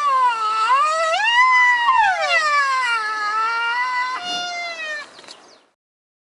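White rhinoceros squealing: a long, high call that wavers up and down in pitch, jumps to a new falling note about four seconds in, then stops.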